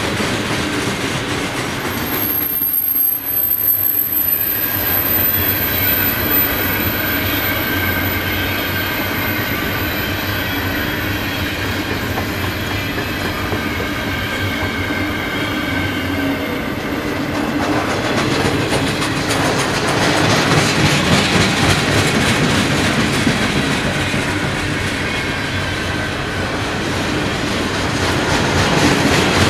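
Freight cars of a long train rolling past at speed: a steady rumble with clickety-clack of steel wheels over the rail joints. Through the first half, high-pitched wheel squeal rings over the rumble.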